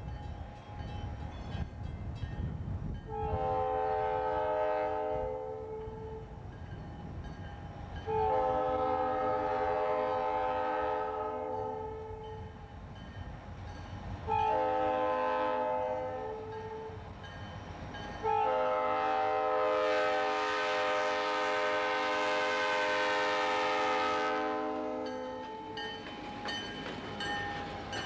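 Diesel locomotive's multi-note air horn sounding four blasts, long, long, short, long: the standard grade-crossing signal. Under and after the horn, the low rumble of the diesel locomotives grows as the lead unit draws close near the end.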